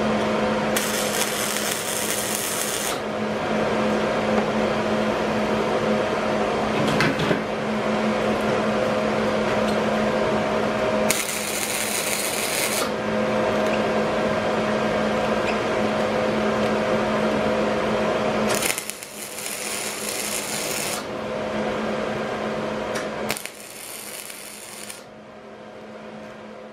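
MIG welder arc crackling in four short bursts of one to two seconds each, tack-welding a mild steel rod guardrail onto a steel grill grate. A steady electrical hum runs underneath and fades near the end.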